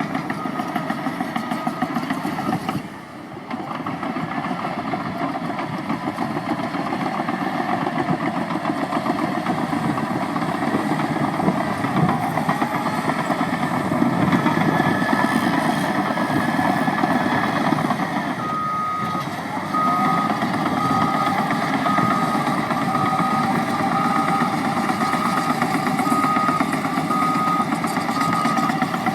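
Caterpillar 963D track loader's diesel engine running under work, with a short drop in level about three seconds in. From about two-thirds of the way through, its reversing alarm beeps steadily about once a second as the machine backs up.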